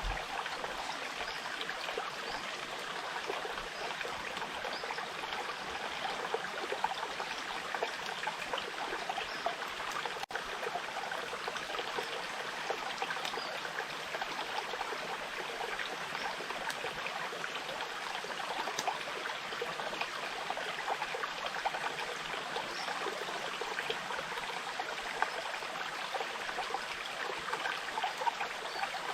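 Small forest stream babbling and trickling steadily.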